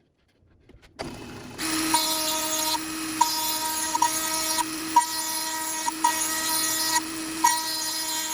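Dremel 400 XPR rotary tool, clamped to a lathe's tool post as a grinder, starts up about a second in and runs at speed with a steady high whine, with light regular ticks.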